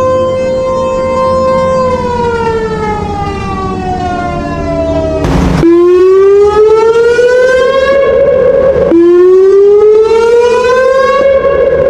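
Siren wailing: a held tone that slides down in pitch, then after a short burst of noise about five seconds in, two slow rising wails that each cut off abruptly.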